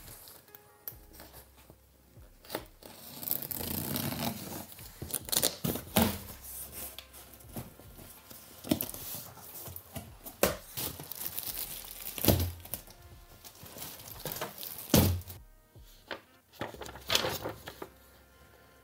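Packaging being unpacked: plastic wrap and bags crinkling and tearing, with a few sharp knocks of parts against the box.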